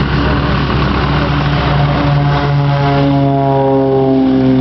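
The piston engines of a pair of small propeller aerobatic planes running at full power on the takeoff roll, their tone falling steadily in pitch as they go past. A steady low engine hum runs underneath.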